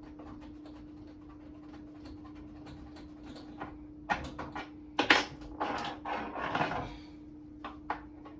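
Knocks and scraping of hand work at a wall cabinet as a microwave mounting screw is probed for its hole, with a sharp knock about halfway through and a couple of seconds of scraping after it. A steady low hum runs underneath.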